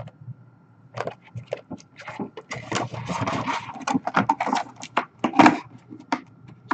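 Handling noise of a clear plastic helmet display case and a cardboard box being moved and set down on a glass counter: a quick run of clicks, knocks and taps, with a rustle near the middle.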